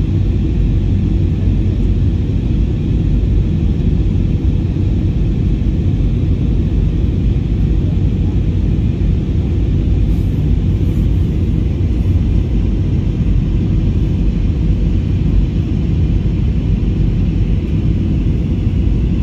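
Steady cabin noise of a jet airliner in flight, the even rumble of engines and airflow heard from inside the cabin, with a faint steady hum over it.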